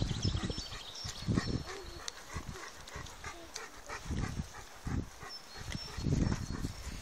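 Bernese Mountain Dog panting close by, in a quick run of short breaths, with irregular footsteps on a dirt track.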